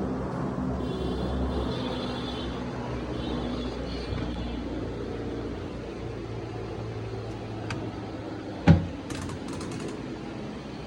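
Steady low mechanical hum, like a small motor running, slowly getting quieter, with one sharp knock about three-quarters of the way through and a few light clicks near it.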